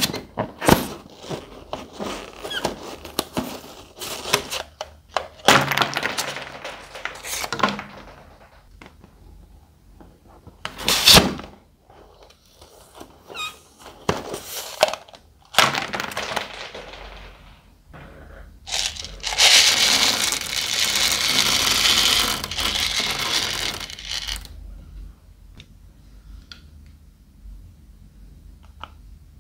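Scissors snipping filled balloons open and their contents dropping out: a run of short snips and knocks, then a steady stream of small beads pouring out for about five seconds, about two thirds of the way through.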